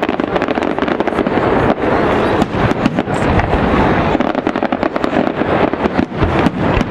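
Aerial fireworks display: a dense, unbroken run of overlapping bangs and crackles from many shells bursting at once.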